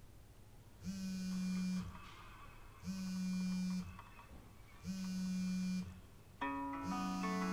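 Smartphone vibrating on the floor, buzzing against it in one-second pulses about every two seconds, four times.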